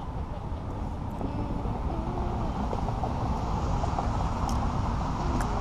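Outdoor background noise: a steady low rumble with faint distant voices, and two light clicks near the end.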